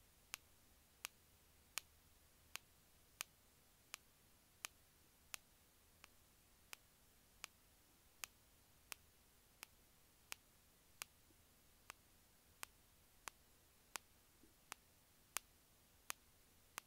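Sharp, dry clicks repeating at an even pace, about three every two seconds, some louder than others, over near silence.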